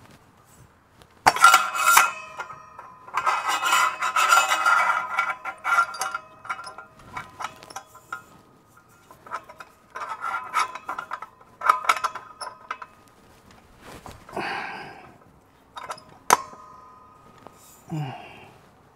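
Metal tools and parts clinking, rattling and clanking, each sharp hit ringing on briefly. The hits come in clusters over several seconds, and the loudest clanks fall about a second in and near the end.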